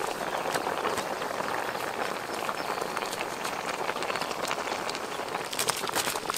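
Soup boiling in a metal wok: a dense, steady bubbling, with sharp crackles that come more often near the end.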